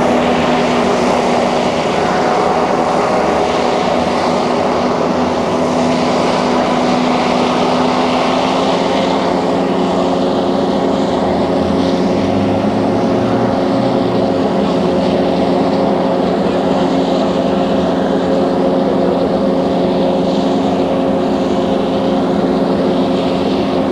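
Rescue hovercraft's engines and propeller running at speed: a steady drone with a constant pitch and a rushing hiss.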